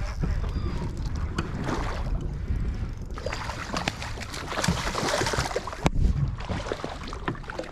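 Water sloshing and splashing against a kayak, with a steady low rumble of wind on the microphone. Scattered clicks and knocks come through, and a stretch of louder splashing hiss runs from about three seconds in to past five seconds.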